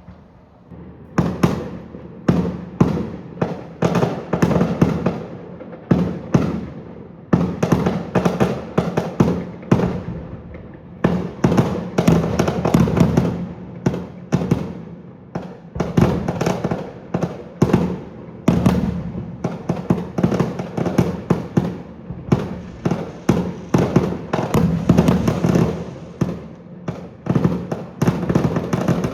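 Fireworks display in rapid fire: a dense, continuous run of shell bursts and crackling bangs, several a second, beginning about a second in.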